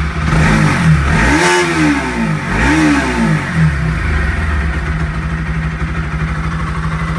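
Bajaj Pulsar NS200's single-cylinder engine running freshly started on new NGK iridium spark plugs. It is blipped twice, the pitch rising and falling about a second and a half in and again about three seconds in, then settles to a steady idle.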